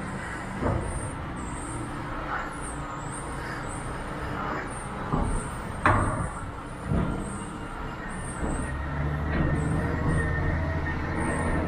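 Semi-truck running, with a low rumble and several sharp knocks and clunks through the middle. Near the end, a steady low engine hum takes over.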